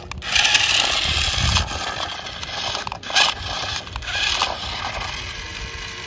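Remote-control model tractor driving over loose gravel and dirt, its tyres crunching and scraping the stones, with a few sharper knocks along the way.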